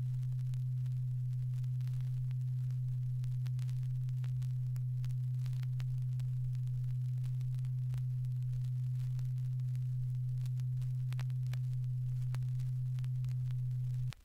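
Steady low sine test tone played from an Electrecord stereo test LP, held at one pitch and stopping abruptly near the end, with faint vinyl surface clicks underneath.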